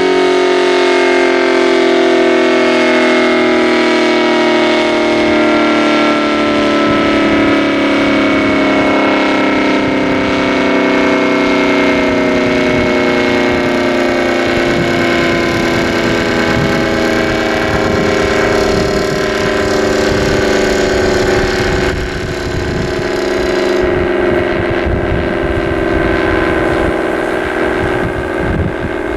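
ACA Banshee 115 outdoor warning siren winding down at the end of a full-alert test, its several tones sliding slowly lower in pitch. A low rumble builds underneath from about halfway through.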